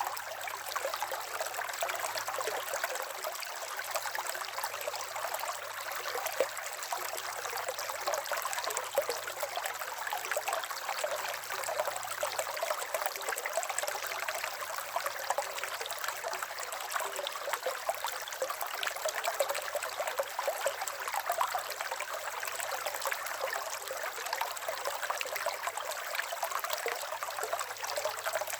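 River water running and trickling over stones, a steady rushing with fine splashes and gurgles.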